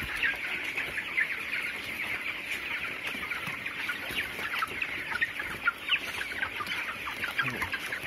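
A house full of 22-day-old broiler chickens calling, a steady mass of short, overlapping peeps and chirps.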